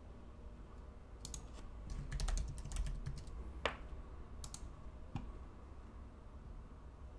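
Computer keyboard being typed on in a few short runs of keystrokes, typing a folder name, with some separate single clicks.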